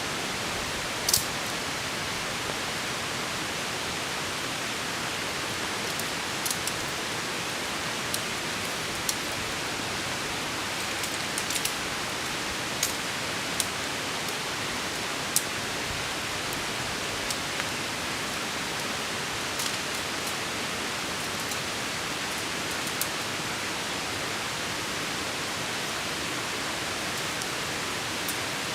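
Heavy rain falling steadily, an even hiss, with scattered sharp ticks of single drops landing close by.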